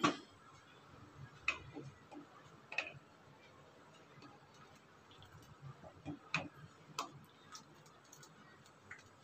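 A spoon stirring thick kheer in a metal pot and knocking against the pot now and then: a scattering of faint, irregular clicks.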